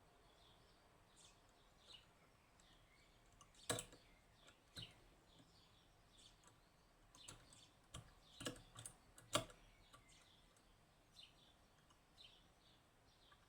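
Faint scattered metallic clicks and ticks of a lever-lock pick and tension tool probing the levers inside a Union (Chubb) G110 five-lever lock, with a few sharper clicks about four and nine seconds in.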